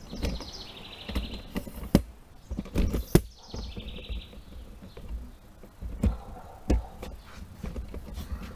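A bird trilling twice in the background, each trill stepping down in pitch, with several sharp knocks and handling thumps, the loudest about two and three seconds in.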